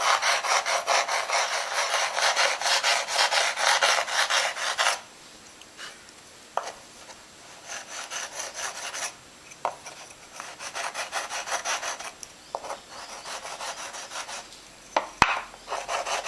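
Sandpaper rubbed back and forth over a hardened plaster slab in quick, rhythmic scraping strokes, smoothing its rough, air-bubbled surface. The strokes stop about five seconds in, come back softer in short spells with a few sharp ticks between them, and grow loud again near the end.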